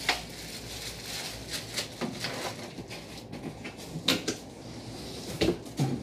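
Plastic packaging crinkling and rustling while hard plastic vacuum cleaner parts are handled and unwrapped, with irregular sharp clicks and knocks, the clearest about two and four seconds in.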